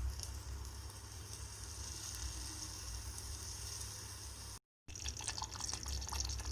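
Milagu kulambu, a tamarind-and-pepper gravy, bubbling at a boil in the pan with a steady hiss. The sound cuts out briefly about four and a half seconds in, then returns with a few light clicks.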